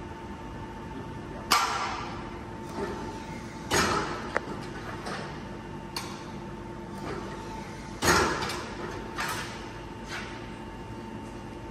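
Steel reinforcing mesh clanking and rattling against the steel pins of a mesh bending machine as it is handled: about six irregular sharp metallic clanks with short ringing, the loudest about a second and a half in and again about eight seconds in. A steady hum runs underneath.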